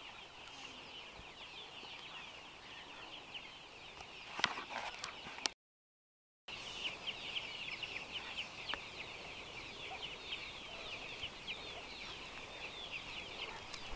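A flock of young chickens cheeping constantly, many high-pitched peeps overlapping, with a brief dropout of the sound near the middle.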